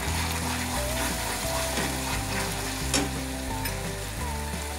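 Manchurian gravy sizzling in a steel kadhai on the gas flame while it is stirred with a spatula, with one knock of the spatula against the pan about three seconds in. Soft background music plays underneath.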